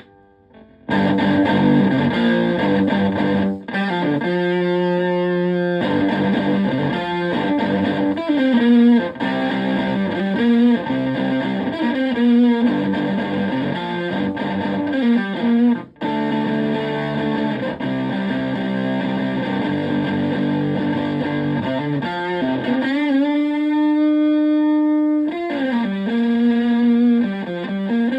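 Fuzz-distorted electric guitar, a Stratocaster through a Zonk Machine fuzz pedal replica and a Twin Reverb-style amp, playing a lead line of single notes and short phrases. It comes in about a second in, breaks off briefly twice, and holds one note for about two seconds near the end.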